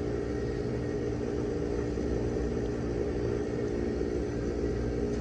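Steady electric motor hum with a constant level and no clear clicks.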